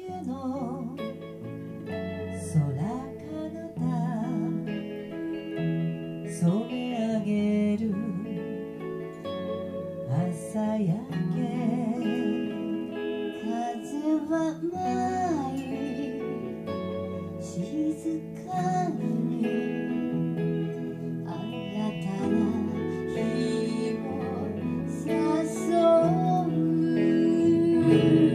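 Live duet of two women singing a Shōwa-era kayō song into microphones, with vibrato, accompanied by two guitars.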